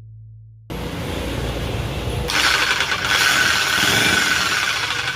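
Electric hex demolition hammer (1400 W) switched on and running, its motor and mechanism making a dense mechanical noise with a steady high whine. It starts suddenly about a second in and gets louder about two seconds later. It is running on freshly replaced carbon brushes after the repair.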